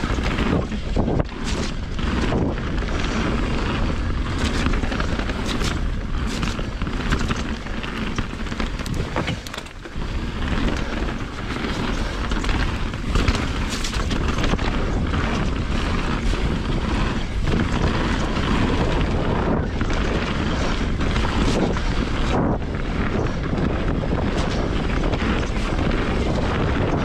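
Mountain bike riding fast downhill: wind buffeting the camera microphone in a steady low rumble, over a constant clatter of tyres on dirt and rock and the bike's frame and chain rattling, with many sharp knocks from bumps. The level dips briefly about ten seconds in.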